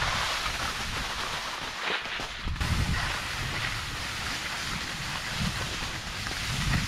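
Skis sliding over snow with a steady hiss, mixed with wind buffeting the camera's microphone; the low rumble eases briefly about two seconds in.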